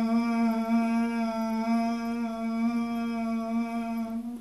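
A woman humming one steady, held note with closed lips (an M hum), done as a chewing-style humming exercise for singers; the note stops at the very end.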